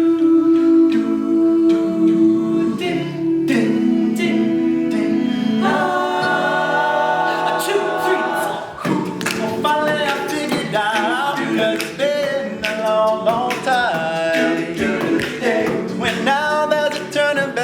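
All-male a cappella group singing in close harmony, opening with sustained chords before the voices start moving.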